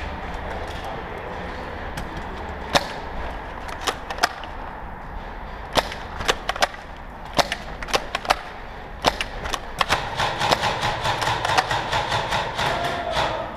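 Airsoft guns firing: scattered single sharp cracks and pops, becoming rapid, dense bursts in the last few seconds.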